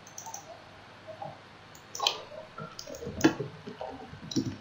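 Computer mouse clicks and keyboard keystrokes: a scattered series of short clicks, more frequent in the second half.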